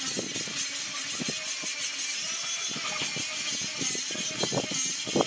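Clay roof tiles clinking and knocking irregularly as they are set in place, over a steady high-pitched buzz.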